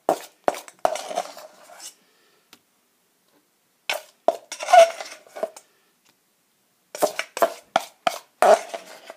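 A knife scraping and clinking against a mixing bowl as liquid plaster is poured and scraped out of it. The clinks come in three short bursts separated by pauses.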